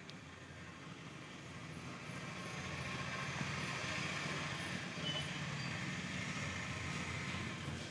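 Street traffic: a heavy vehicle's engine hum and road noise swelling over a few seconds, then easing off near the end.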